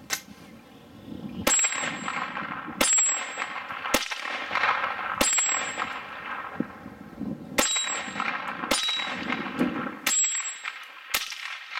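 Browning Buck Mark .22 LR pistol firing about nine shots of high-velocity hollow points, roughly one a second with a longer pause midway. Each sharp crack is followed by a short ringing tail.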